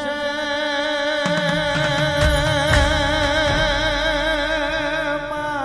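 Gujarati devotional folk music between sung lines: long held melodic tones with a wavering pitch, with low sounds joining in about a second in.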